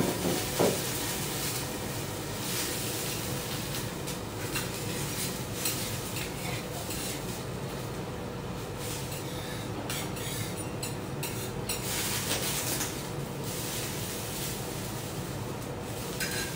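Metal teppanyaki spatulas and tools clinking and scraping as they are handled and wiped at a steel griddle, with one ringing clink about half a second in and lighter clicks after, over a steady hiss.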